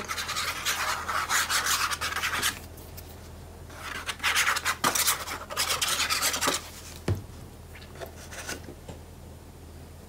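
Nozzle of a plastic liquid-glue bottle scraping across cardstock in two long rasping stretches as glue is laid down in lines. Then one sharp thump about seven seconds in, followed by a few faint ticks.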